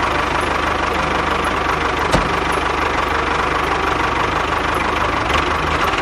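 A small engine or motor running steadily at speed, with a fast, even pulsing, and a single sharp click about two seconds in.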